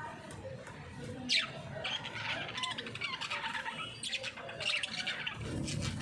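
Budgerigars chattering and warbling: a sharp falling call about a second in, then a busy run of quick high chirps and squawks.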